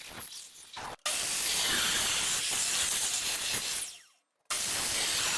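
A power tool cutting through a cricket bat's handle, a loud, steady hissing cutting noise that starts about a second in. It breaks off for about half a second near four seconds in, then resumes.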